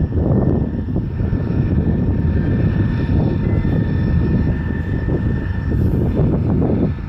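Train moving over the tracks while shunting: a loud, steady low rumble with a thin, steady high tone over it.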